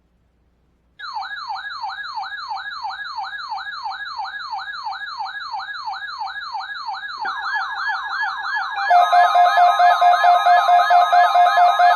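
Electronic siren in a rapid yelp, sweeping up and down about three times a second, starting about a second in. A second yelping tone joins about seven seconds in, and a steady tone is added near nine seconds, when it gets louder.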